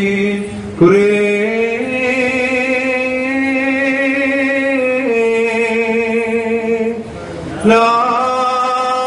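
A man's voice chanting a liturgical hymn in long held notes that waver slightly, with short breaks about a second in and again near the end.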